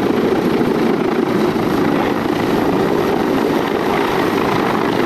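Military helicopter running steadily and loudly, a dense, unbroken rotor and engine noise.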